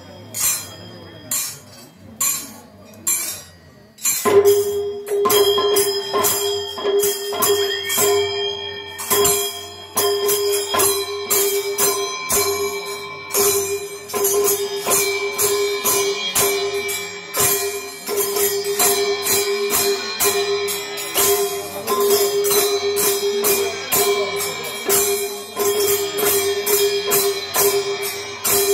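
Two-headed barrel drums beaten by the dancers, with bright metallic clashing, at first in a few evenly spaced strokes. About four seconds in, a steady held tone enters and the percussion turns to a fast, dense rhythm that keeps going.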